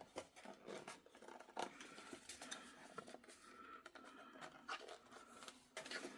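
Faint scratching, rustling and light plastic clicks from hands handling a plastic digital clock and its kickstand.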